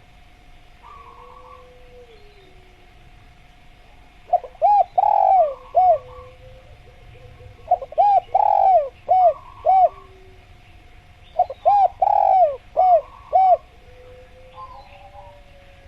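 Spotted dove (tekukur) singing: three cooing phrases, each about two seconds of several arched coo notes, a few seconds apart. Faint chirps from other birds and a steady faint tone sit underneath.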